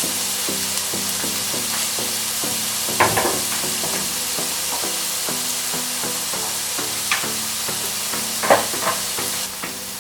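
Chopped onion frying in oil in a pan, a steady sizzle, with a few short knocks. Soft background music plays underneath.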